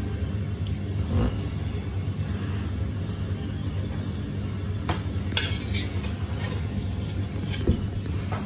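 A few light clinks of tableware over a steady low hum.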